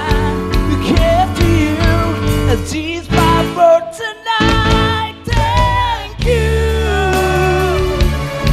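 Live band playing a pop ballad through a PA, with male voices singing into microphones over keyboard, bass guitar and electric guitar. The music drops out briefly about four seconds in.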